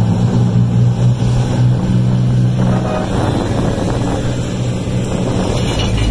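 Lifeboat launching off its beach carriage into breaking surf: engines running steadily under the splash and rush of the waves, with wind on the microphone.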